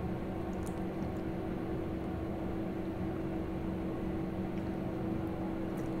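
Steady background hum with a faint constant tone, unchanging throughout, with no distinct events.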